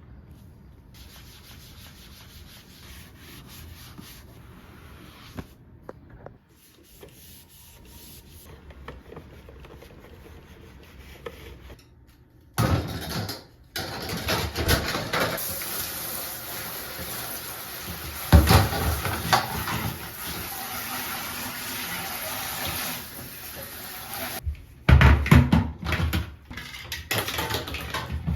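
Faint rubbing and handling noises, then, from a little under halfway in, a loud, steady rush of running water with a few knocks and clatters.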